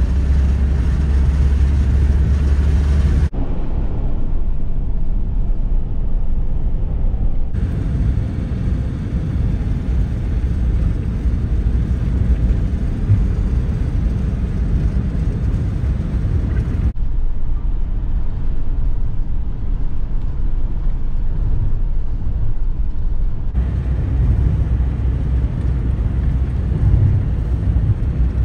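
Steady low road and engine rumble heard inside the cabin of a moving van, its tone changing abruptly several times.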